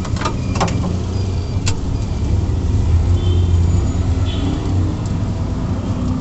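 Street traffic: a steady low rumble of motor vehicles on a busy road, with a few sharp clicks in the first couple of seconds.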